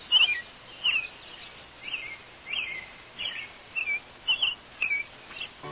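A bird chirping: a string of short, high calls that sweep up and down, roughly two a second, over faint background hiss.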